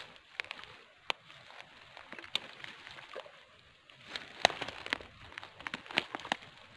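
A person wading through shallow swamp water: irregular splashes and sloshes of steps, coming more often and louder in the second half.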